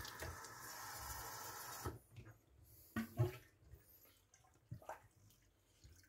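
Tap water running over a vacuum cleaner part being rinsed, stopping about two seconds in, followed by a few light knocks and clicks as the part is handled.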